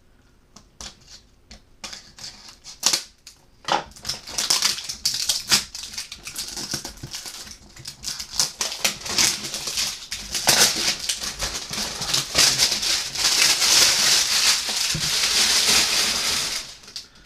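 Packaging being opened by hand: a paper sleeve and cardboard box handled and slid apart. First come scattered taps and clicks, then loud, continuous rustling and scraping of paper and card.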